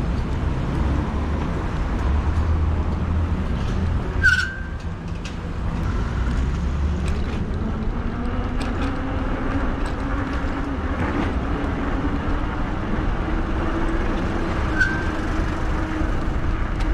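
City road traffic heard from a moving e-bike: a steady rumble of vehicles running past. A hum slowly rises in pitch through the second half. A short high squeak comes about four seconds in and again near the end.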